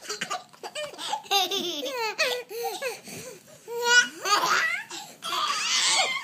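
Baby laughing in repeated high-pitched bursts, with breathy squeals, the longest near the end.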